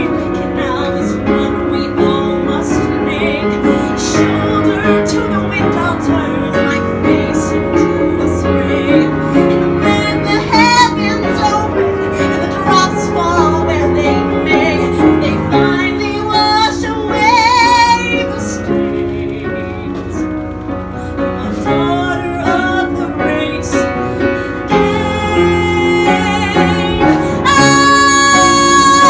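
A woman singing a Broadway show ballad solo with piano accompaniment. Her voice builds to a long, loud held high note with vibrato near the end.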